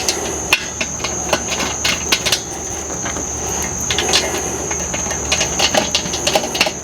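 Irregular metallic clicks and knocks of tools and grill hardware being handled while bolting the handle mechanism onto a Weber kettle lid, more closely spaced near the end. Under them runs a steady high-pitched insect trill.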